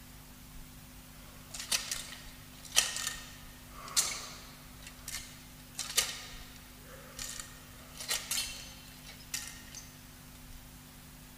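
Sharp metallic clinks with a short bright ring after each, about nine of them a second or two apart at an uneven pace, over a faint steady hum.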